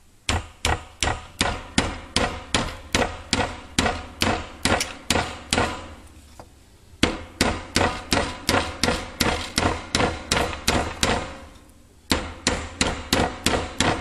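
Hammer blows driving a metal rod through a hole drilled across a wooden handle: steady strikes about three a second, each with a short metallic ring, in three runs broken by two brief pauses.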